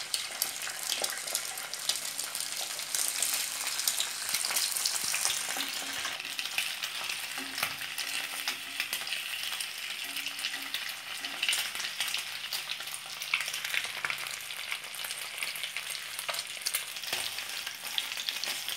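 Beaten egg and stuffed boiled eggs sizzling and crackling in plenty of hot oil in a frying pan, with a wooden spatula pushing and turning them.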